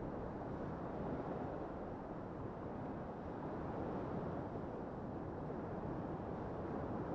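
Waves breaking and washing onto a sandy shore: a steady rush of surf that swells and eases gently.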